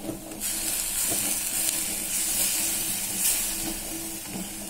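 Ground onion paste sizzling in hot oil in a non-stick pan as it is stirred and spread with a wooden spatula: a steady hiss that starts about half a second in and fades near the end.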